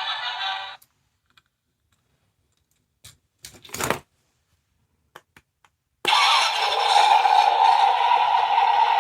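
Sound-effect capsule toy playing recorded sounds through its tiny speaker. One sound cuts off just under a second in, then come a few clicks of the toy being handled or its button pressed. About six seconds in, another sound starts: a loud, steady, buzzing one.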